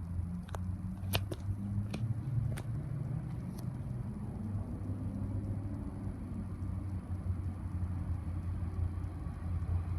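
NR class diesel-electric locomotive running as it hauls a freight train in: a steady low engine rumble, with a few sharp clicks in the first few seconds.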